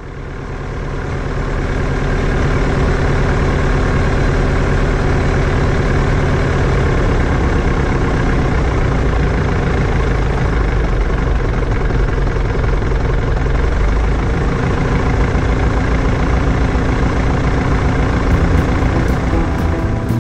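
Piper Super Cub's piston engine and propeller running steadily, heard from inside the cockpit. The sound fades in over the first couple of seconds, then holds an even, unchanging note.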